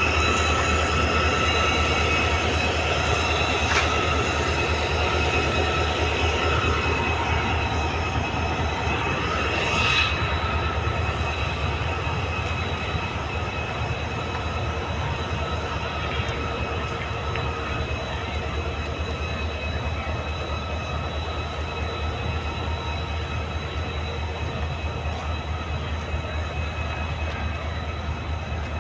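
Diesel locomotive running close by: a heavy low rumble under steady high whining tones, with a single sharp knock about ten seconds in. The sound slowly fades toward the end.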